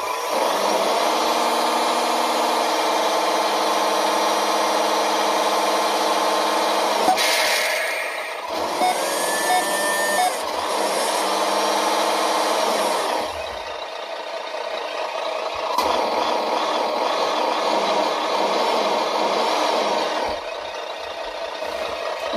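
Simulated truck engine sound from a GT Power RC sound module, played through its small speaker. It runs steadily and shifts in pitch a few times. A short hiss comes about seven seconds in, and the engine sound drops back twice.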